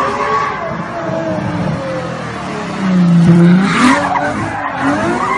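Car drifting: the engine revs up and down while the tyres squeal as the car slides sideways. It gets louder about three seconds in.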